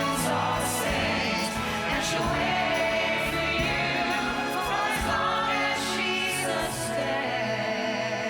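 Stage ensemble singing with instrumental accompaniment: a sustained choral passage from a musical number.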